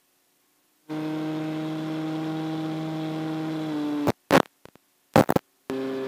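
Electric motor and propeller of a 3D-printed FPV flying wing, a steady pitched whine that drops a little in pitch just before four seconds in and comes back lower as the throttle is eased off. The sound is missing for the first second and cuts out again between about four and six seconds in, broken by loud crackling pops.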